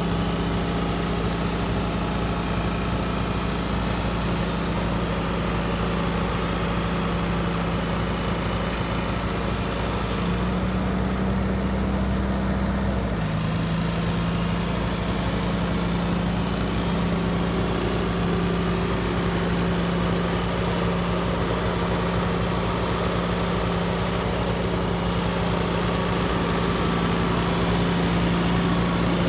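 Allis-Chalmers D14's four-cylinder gas engine idling steadily. The engine speed lifts slightly about ten seconds in and settles back about three seconds later.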